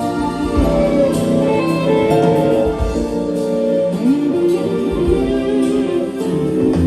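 Live funk band playing an instrumental passage, no vocals.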